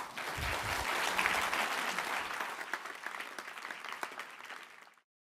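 Audience applauding at the end of a talk, starting at once, slowly fading, and cut off abruptly about five seconds in.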